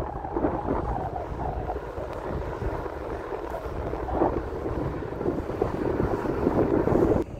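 Wind buffeting a phone's microphone while cycling, a rushing noise that swells and fades unevenly and drops out briefly near the end.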